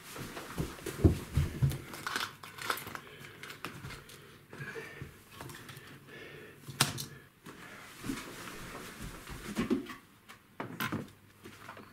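Hands rummaging through a plastic basket of small objects: crinkling and rustling of packets with small knocks. Two sharp clicks stand out, one in the middle and one near the end.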